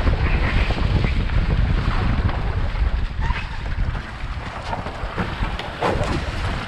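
Wind buffeting the microphone in a heavy low rumble, over the rush of water along the hulls of a Seacart 30 trimaran under sail; the buffeting eases a little about four seconds in.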